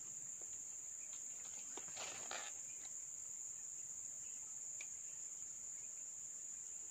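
Steady high-pitched drone of insects, with a brief rustle about two seconds in.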